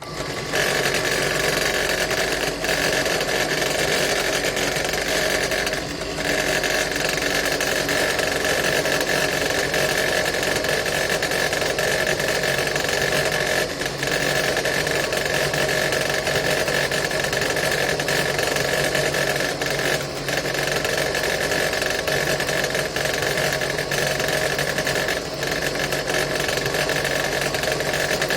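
ZITREK DP-82 benchtop drill press motor starting at once and running at a steady speed with a constant whine, dipping briefly a few times while a 1.5 mm drill bit is fed into the work.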